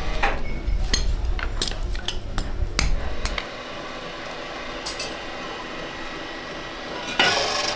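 Metal clinking and knocking, a series of sharp strikes, over a low rumble that stops about three and a half seconds in. Near the end there is a short, loud rush of scraping noise.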